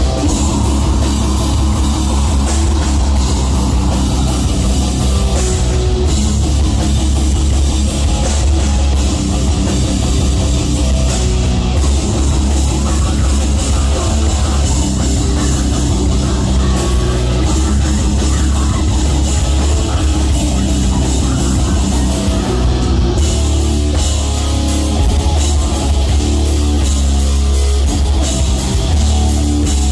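Live heavy metal band playing loudly: distorted guitars and a drum kit, with booming, heavy bass.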